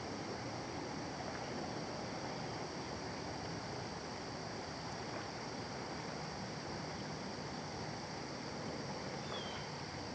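Steady outdoor creekside ambience: an even wash of noise with a steady high insect drone, and one short high chirp about nine seconds in.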